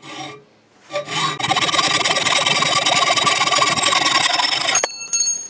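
Hand hacksaw cutting M6 threaded rod held in a bench vise: a fast, steady run of strokes with a ringing, scratchy edge that stops abruptly near the end, followed by a short metallic ring.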